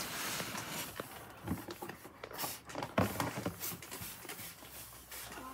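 Paper towel rubbed across a hard desktop, wiping off glass cleaner, with a few light knocks about a second and a half, three seconds and three and a half seconds in.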